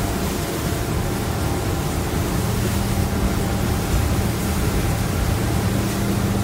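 Outboard engines of a 32 ft power boat running steadily under way: a constant low hum under a loud rush of wind and water against the hull.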